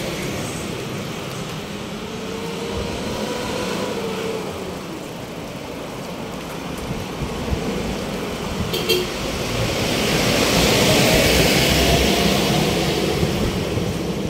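Road traffic noise: motor vehicles running past, with one passing close and louder about ten to thirteen seconds in.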